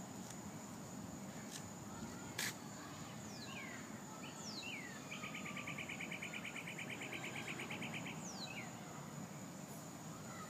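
Outdoor ambience: a steady high-pitched insect drone, with birds giving short falling whistled calls several times and a rapid pulsed trill for about three seconds in the middle. A single sharp click about two and a half seconds in.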